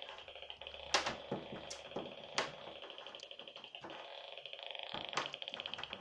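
Handheld magnetic-field meter's audio signal, a steady rapid buzz of fine ticks, as the meter picks up the weak field of a battery wristwatch. A few sharp clicks from handling the meter on the table come through about one, two and five seconds in.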